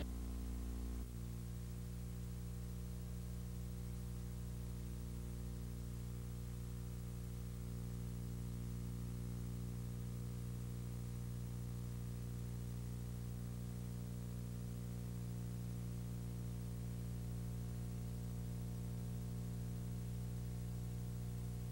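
Steady low electrical hum with faint hiss, a mains-type buzz on the soundtrack of a blank recording, settling about a second in.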